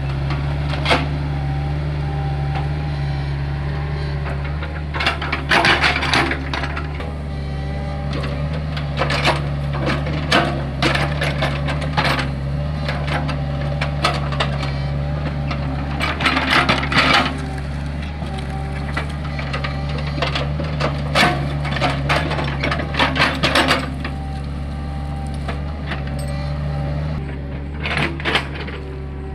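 Hitachi hydraulic excavator engine running steadily under load, with repeated bursts of clattering and scraping as the bucket works dry, hard soil.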